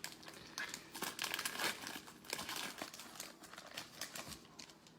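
Foil wrapper of a Prizm football trading-card pack crinkling and tearing as it is opened, a run of irregular crackles.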